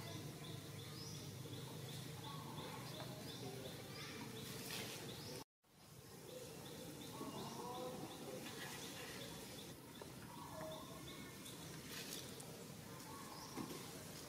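Faint outdoor ambience with a short, high chirp repeating about twice a second. The sound cuts out completely for a moment about five seconds in, then resumes.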